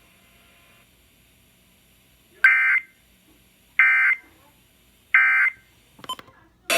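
Emergency Alert System end-of-message data bursts: after about two seconds of near-quiet, three short, identical digital bursts about a second and a half apart, the code that marks the end of the alert. A few clicks near the end.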